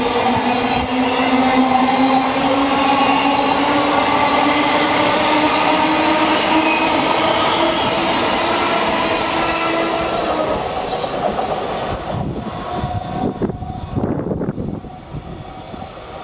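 Thameslink electric multiple unit pulling away, its traction motors whining with a pitch that climbs slowly as it gathers speed over a rumble of wheels on the rails. About twelve seconds in the whine fades as the train draws off, leaving fainter wheel clatter.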